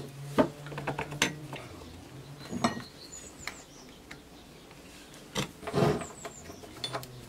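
Scattered light knocks and clicks of a wooden plate being handled, shifted and fitted onto the table of a benchtop drill press, with quiet stretches between.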